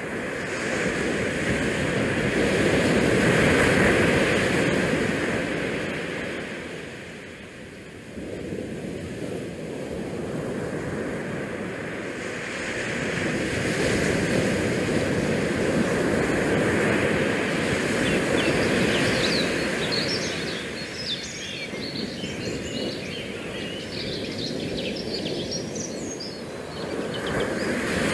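Wind and small bay waves washing against a rock riprap shore, the noise swelling and easing over several seconds. A stretch of quick, high chirping comes in the second half.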